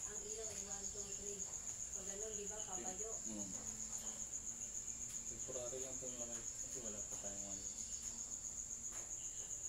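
Crickets giving a steady, high-pitched trill.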